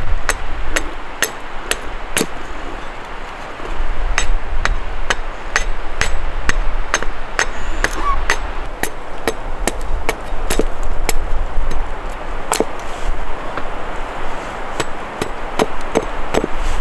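Repeated sharp strikes of a hand tool, an irregular run of about two knocks a second that vary in strength, over a low rumble.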